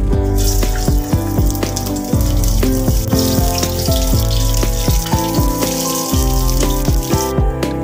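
Cumin seeds, a bay leaf and other whole spices sizzling steadily in hot cooking oil, starting just after they are tipped in and cutting off suddenly near the end. Background music plays throughout.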